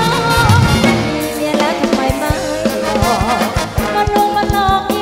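Thai ramwong dance music from a live band, taken off the mixing desk: a drum kit keeps a steady beat under a melody line.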